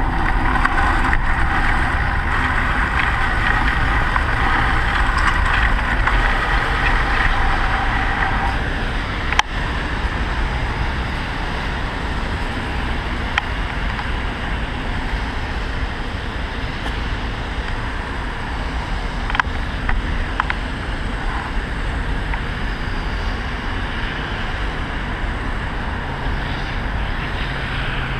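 Wind rushing over a bike-mounted camera microphone and a steady whirring of bicycle tyres rolling on a snowy, icy cycle lane; after about nine seconds the bike stops, and the rumble of city traffic goes on, with a few light clicks.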